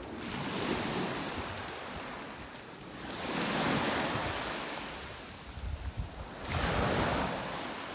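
Small sea waves breaking and washing up over a pebbly shore, the surf rising and falling away three times.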